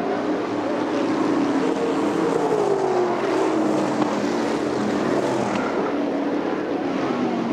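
Winged sprint cars' V8 engines running at speed on a dirt oval, several cars at once; one engine note slides slowly down in pitch from about two seconds in.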